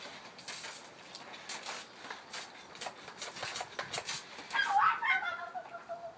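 Plastic water pistols squirting in short hissing spurts, then a girl's high, wavering squeal about four and a half seconds in, falling in pitch as it trails off.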